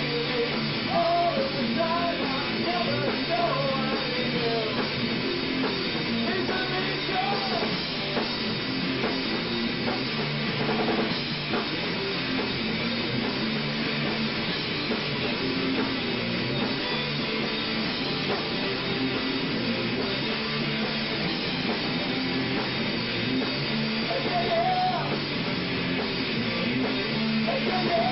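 Live rock band playing: drum kit and electric guitar at a steady, full level. A wavering melody line sits over the band at the start and comes back near the end.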